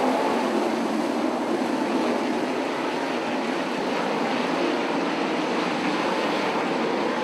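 A pack of winged dirt-track sprint cars racing together, their engines blending into one steady, dense wash of engine noise with no single engine standing out.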